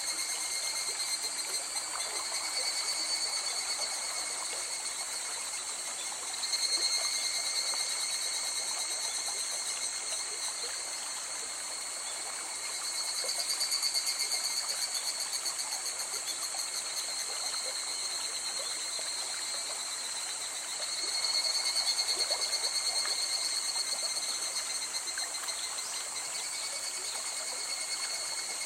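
A river flowing with a steady trickling rush. Over it runs a continuous chorus of high, pulsing trills from night-calling animals, which swells louder three times.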